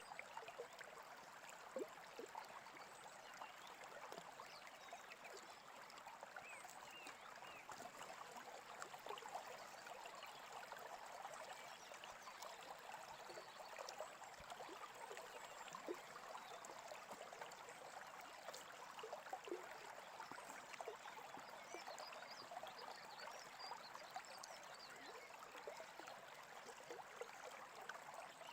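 Faint brook babbling steadily, with birds chirping in short, quick calls throughout, more of them in the second half.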